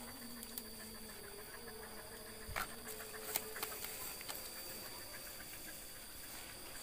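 Faint rustling and scattered scratches of hunting dogs digging and nosing into a rat hole in grassy soil, with a few sharper clicks in the middle and a faint steady hum behind.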